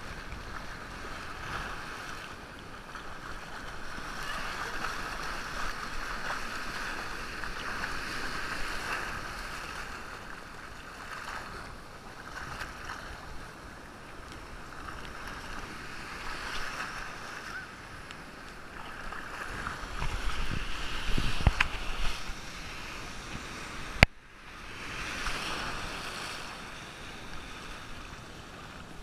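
Ocean surf breaking and washing through the shallows right at the microphone: a steady rush and hiss of waves and foam. A few seconds from the end the rush swells lower and louder, then a sharp click and a brief drop break it before the surf resumes.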